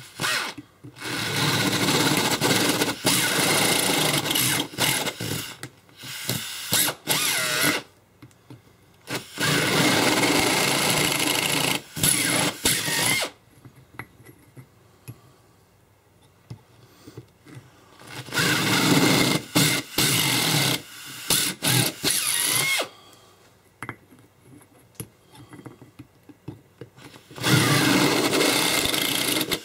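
Handheld power drill with a 3/16-inch bit boring holes through a thin metal barrel sleeve. It runs in about five bursts of a few seconds each, with short pauses between.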